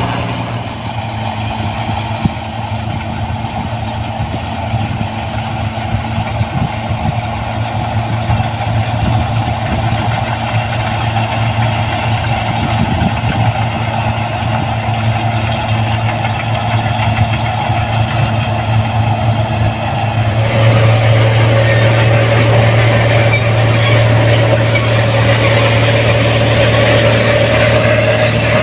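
Rice combine harvester's diesel engine running steadily; about two-thirds of the way in it grows louder and a higher whine joins it.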